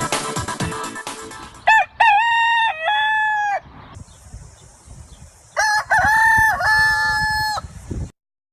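Rooster crowing twice, each crow about two seconds long and a couple of seconds apart, as the tail of a music track fades out just before the first crow. A steady high hiss runs under the second crow, and the sound cuts off suddenly soon after it.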